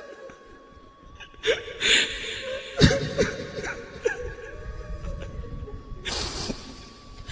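Pause in a live Quran recitation: faint listeners' voices, short exclamations and sighs, with scattered clicks and knocks and a faint steady tone from the sound system.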